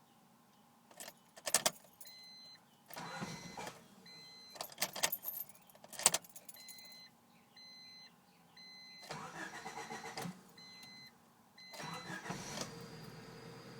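1993 Honda Civic del Sol being started with difficulty: the starter cranks in three short bursts with sharp clicks in between, while a dashboard warning chime beeps on and off. The engine catches near the end and settles into a steady idle. This is the car's fault of refusing to start until the check engine light goes out.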